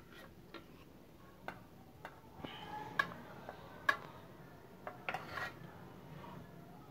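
A metal knife tapping and scraping against a steel bowl as it works through solid butterfat. There are sharp, irregular clicks about once a second, a few of them ringing briefly, with a quick cluster about five seconds in.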